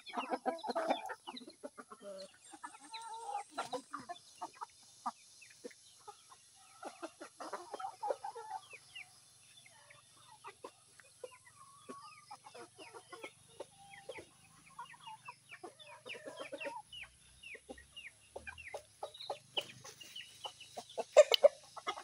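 Chickens clucking as they feed on scattered grain, a steady scatter of short, quick calls with a louder call near the end.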